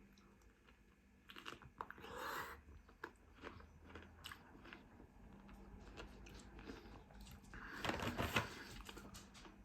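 A person biting and chewing raw cucumber, with crisp wet crunches; the crunching is loudest near the end.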